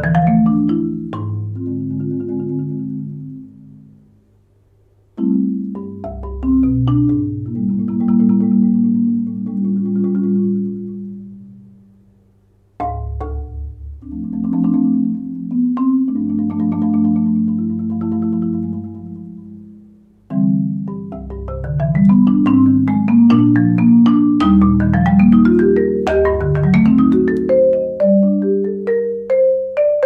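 Concert marimba played with four graduated 0gravity Percussion Jupiter yarn mallets, medium-soft to medium-hard, in a slow lyrical arrangement: low notes are held and rolled, and chords are spread upward note by note. It has a warm tone with little mallet contact sound. Phrases die away almost to silence about four, twelve and twenty seconds in, and the last phrase is the fullest and loudest.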